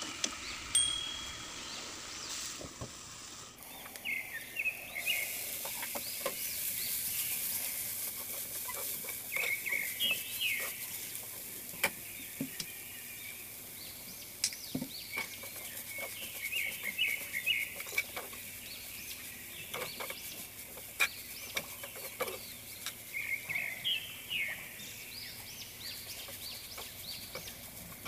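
A metal spatula scrapes and knocks against a frying pan as shredded vegetables are stir-fried. Short runs of bird chirps come in every few seconds.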